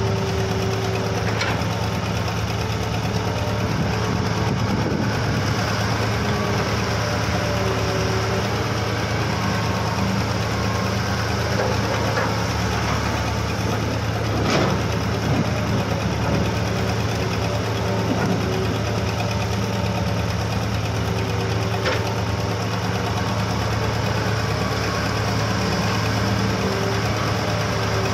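Diesel engines of Hitachi and Kobelco hydraulic excavators running steadily while digging soil, with a few short sharp knocks.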